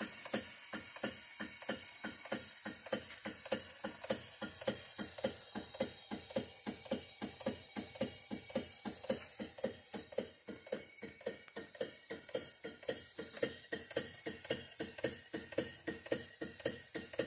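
1902 Wilcox & Gibbs sewing machine running under the power of a small Sipp steam engine, with a steady, even clacking of about three to four beats a second.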